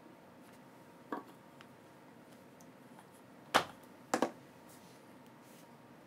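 A few sharp knocks and clacks of hard objects handled at a wooden tabletop: a light one about a second in, a loud one past three and a half seconds, then a quick double knock just after four.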